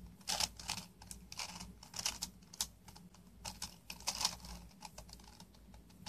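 A 5x5 plastic puzzle cube being turned in the hands: quick, irregular runs of plastic clicks and clacks as its layers turn.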